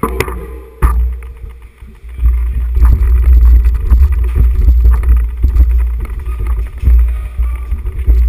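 Loud, uneven low rumble with scattered knocks, clatter and splashing footsteps as mountain bikes are pushed on foot through a wet concrete storm-water drain tunnel; a sharp knock about a second in.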